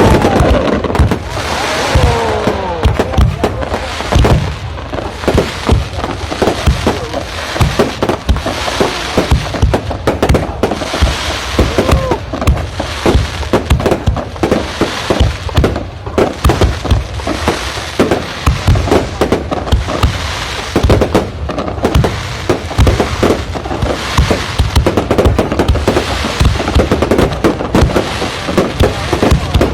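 Fireworks display: a dense, continuous barrage of bangs and crackling shell bursts, with descending whistles near the start and another brief whistle about twelve seconds in.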